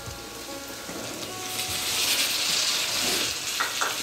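Brinjal pieces frying in hot oil in a steel kadai, sizzling steadily. About two seconds in, the sizzle grows louder as chopped tomatoes go into the pan, with a couple of light knocks near the end.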